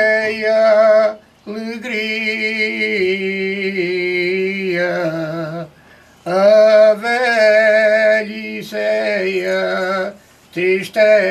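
Male choir singing cante alentejano unaccompanied, in several voice parts: long drawn-out held notes, with three short breaks for breath.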